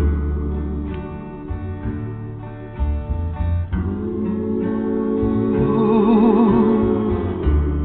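Recorded music: a slow ballad with acoustic guitar and long, wavering held notes over a steady bass, with no lead vocal.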